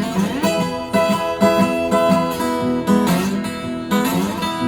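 Steel-string dreadnought acoustic guitar in open E tuning, strummed and picked with notes ringing together.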